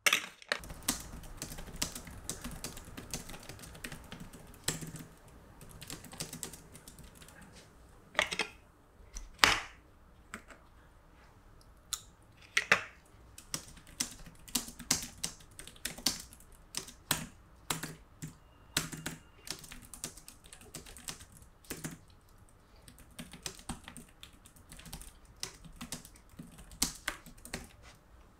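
Typing on a low-profile computer keyboard: a long run of irregular keystroke clicks, with a few louder clacks among them.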